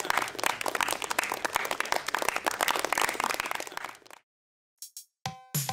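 Audience applause, many hands clapping at once, fading out about four seconds in and then cutting to silence.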